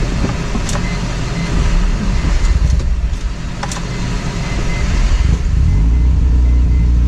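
Mazda RX-7 FD's 13B rotary engine running cold after three months unstarted, uneven at first, then settling into a steady idle about five seconds in.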